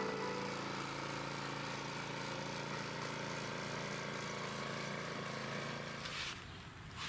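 A motor running steadily with a low, even hum, which stops about six seconds in; brief rustling follows near the end.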